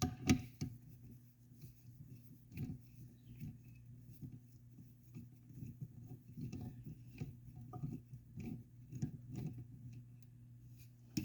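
Faint, irregular small clicks and scrapes of a hand tool and metal parts as a stud-type bolt is worked out of the ATV engine's shift mechanism, over a low steady hum, with a sharper click near the end.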